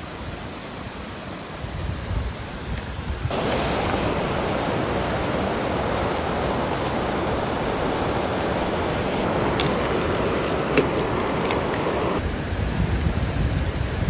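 Rushing water of a mountain stream, a steady hiss, with wind rumbling on the microphone. The water noise jumps up sharply about three seconds in and drops back near the end.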